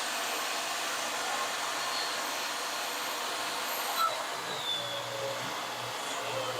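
Skil table saw running steadily while ripping a maple board.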